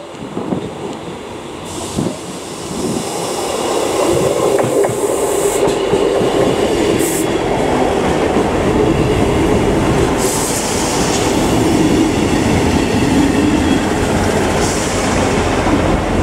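ScotRail Class 158 diesel multiple unit running along the platform close by, its diesel engines and wheels on the track growing louder over the first few seconds and then holding steady.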